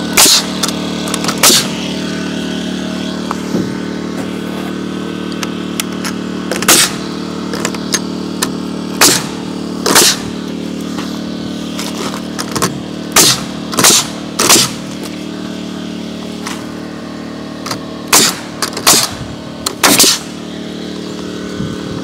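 Pneumatic framing nailer driving nails into a board, about a dozen sharp shots, some in quick runs of two or three, over a steady machine hum.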